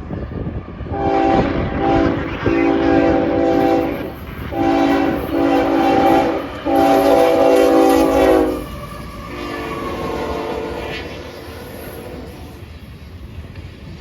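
Diesel freight locomotive's multi-chime air horn sounding four long blasts with short breaks, then a fainter fifth, over the rumble of the passing train.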